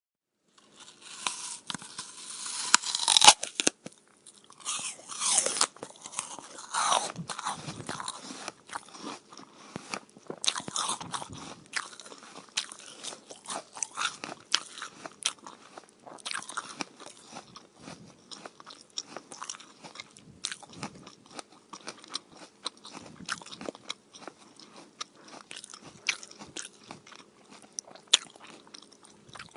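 A person biting into a crisp, fresh apple with a loud crunch about three seconds in, then chewing it with close, wet crunching and many small crackles. The crunches are loudest in the first eleven seconds and give way to steadier, softer chewing.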